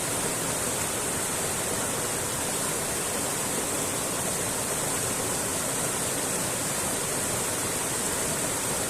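Mountain creek running over rocks: a steady, even rush of water with a bright hiss on top.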